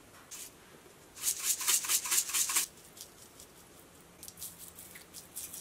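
Spices shaken from a shaker jar into a stainless steel pot: a quick run of dry, rattling shakes about a second in, lasting about a second and a half. A few lighter ticks and taps follow near the end.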